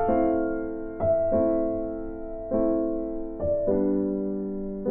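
Background music: soft keyboard chords, a new chord struck every second or so and fading before the next.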